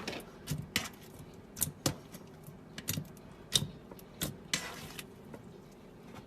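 Slime being worked by hand, giving irregular sticky clicks and pops about every half second to a second, with a short crackling smear about four and a half seconds in.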